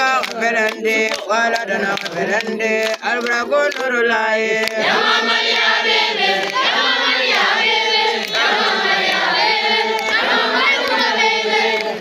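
A group of boys chanting together in unison. The chant becomes fuller and more sustained about five seconds in.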